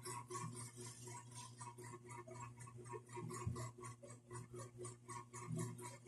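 Faint, rapid, even ticking, about five ticks a second, over a steady low hum.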